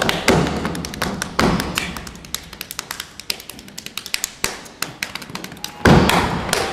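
Body percussion: a run of quick, sharp hand slaps and claps on the chest and thighs, with heavier thumps now and then. The slaps get lighter and quicker in the middle, and a single loud slap comes near the end.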